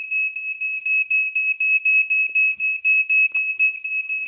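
Smoke alarm sounding: one shrill high-pitched tone in rapid, even beeps, several a second, without a break, set off by smoke from burnt food.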